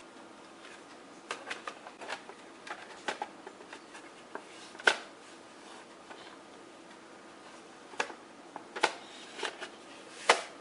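Hands handling the robot vacuum's plastic charging dock and its power cord: scattered clicks and knocks over light rustling, with sharp clicks about five seconds in, a few more later and the loudest near the end.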